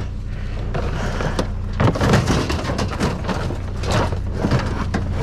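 Junk being rummaged through and handled: scattered knocks, clatters and rattles of objects being moved, over a steady low hum.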